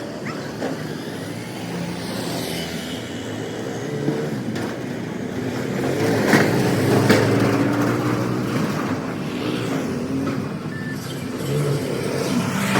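A motor vehicle's engine running, growing louder about halfway through, with a couple of sharp knocks.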